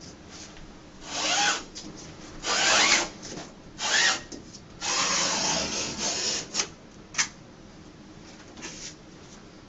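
Utility knife blade drawn along a ruler through two overlapping layers of wall wrap, in four or five scraping strokes, some with a rising squeak. A single sharp click follows about seven seconds in.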